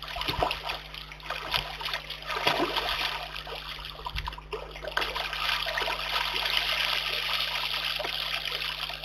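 Brown bear cub splashing in a shallow muddy pond, with several separate splashes at first. From about five seconds in, a steady pouring and trickling of water as it rises upright and water streams off its fur.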